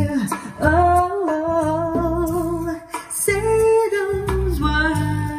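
Recorded music played back through bookshelf speakers driven by a Luxkit A2500 valve power amplifier: a slow pop ballad with a woman singing long held notes over a steady bass line.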